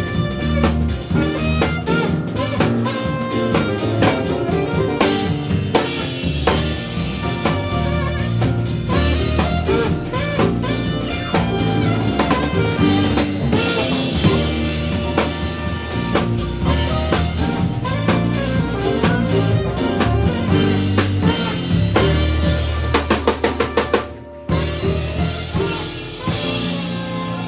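Live band playing with a saxophone lead over drum kit and bass. Near the end, a quick drum fill leads into a short break, and then the band comes back in.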